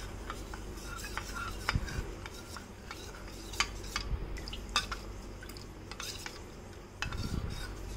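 Steel spoon stirring cornflour slurry in a small stainless steel bowl, with scattered light clinks and scrapes of the spoon against the bowl's sides as the cornflour is mixed smooth.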